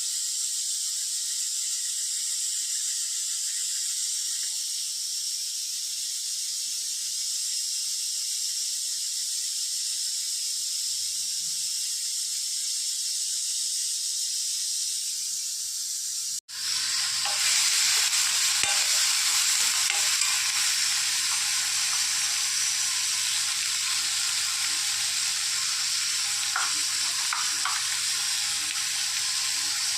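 Steady rushing hiss of water and wind from a moving boat. After an abrupt break about halfway through, it comes back louder with a low steady hum underneath, likely the boat's motor.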